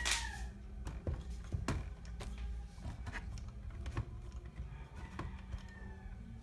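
Scattered light clicks and knocks of packaging and the cast-metal gumball bank being handled, over a low steady hum. A rooster's crow trails off at the very start.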